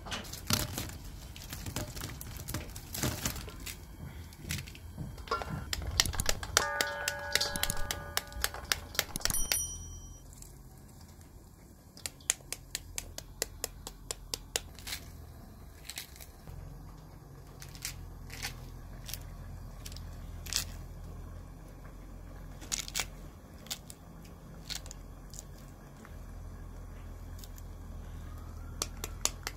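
Pomegranates being broken open and seeded by hand: rind tearing and crackling, with sharp clicks as arils drop into a stainless steel bowl. In the first ten seconds there is denser handling of wicker baskets, including a creaking squeak.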